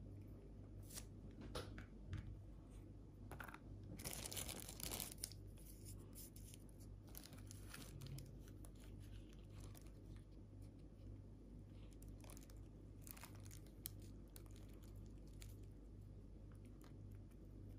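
Faint handling noises: a short stretch of crinkling cellophane wrapper about four seconds in, and scattered light clicks and taps as a wooden pick works the mochi in its plastic tray, over a steady low hum.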